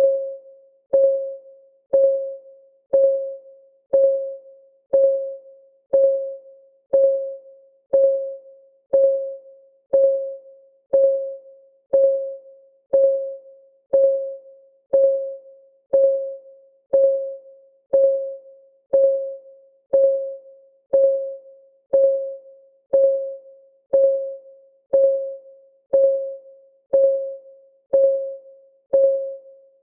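Clock ticking sound effect, one tick a second, each tick a sharp click with a short ringing tone that fades before the next.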